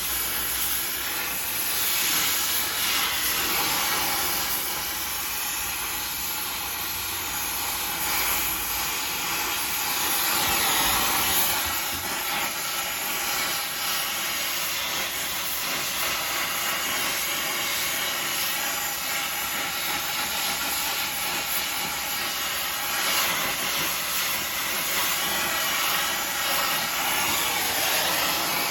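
Handheld gas torch flame burning with a steady hiss while it heats a square steel bar to cherry red.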